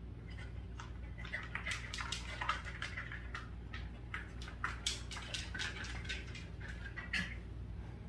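A dachshund scratching and pawing at the narrow gap beside an air conditioner and at the floor cushion: a run of irregular scrapes, scuffs and rustles, over a steady low hum.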